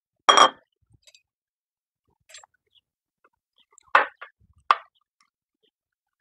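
A metal fork mashing and stirring tortilla masa with a little water in a ceramic bowl. It makes a few short scrapes and knocks against the bowl, with a louder knock just after the start.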